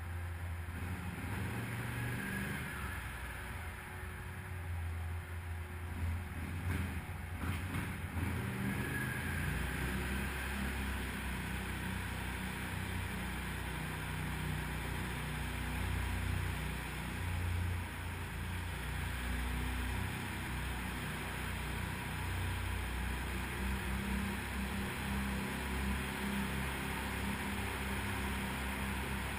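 Can-Am 1000 quad's Rotax V-twin engine running steadily as it rides through a stone tunnel, its note shifting a little now and then with the throttle, over a steady hiss of tyre and riding noise.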